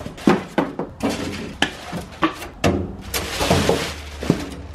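Clear plastic wrap crinkling and rustling as it is pulled off a new tool chest, among a run of sharp knocks and taps from handling the chest and its cardboard and foam packing.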